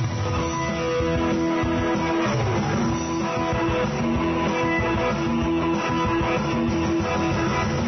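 Guitar music without singing: electric guitar and strummed chords with sustained notes held steadily.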